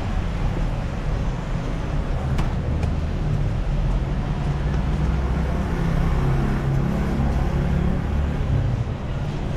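City street traffic: a steady low rumble of passing vehicles, with a short click about two and a half seconds in.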